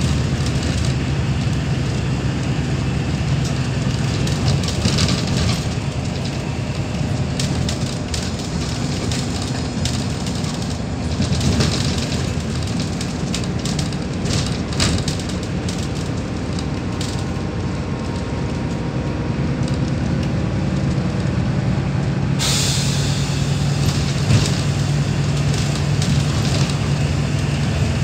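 Cabin sound of a Neoplan K4016td city bus under way: the MAN D0826LOH17 six-cylinder turbo-diesel and ZF 5HP500 automatic gearbox running at a steady drone, with road noise and scattered rattles from the interior fittings. About 22 seconds in, a loud hiss sets in and slowly fades.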